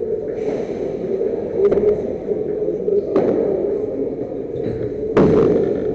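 Padel rally: a few sharp knocks of the ball off paddles and the court's walls, the loudest about five seconds in with a short ring after it, over a steady murmur of voices.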